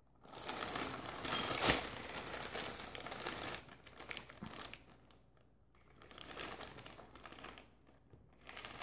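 Plastic poly mailer bag crinkling as a child's hands work it open, busiest in the first few seconds with one sharp click about a second and a half in, then softer rustling with short pauses.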